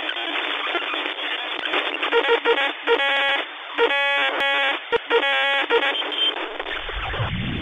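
Tinny, radio-like static hiss with several short bursts of electronic beeping tones, as in a produced intro sound effect; a low rumble swells in near the end.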